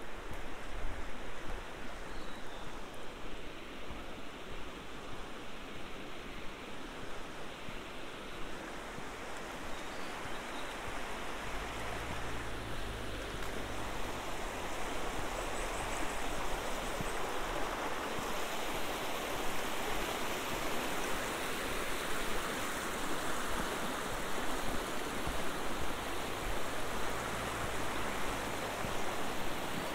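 Shallow mountain stream rushing steadily over stones and rocks, growing a little louder about halfway through.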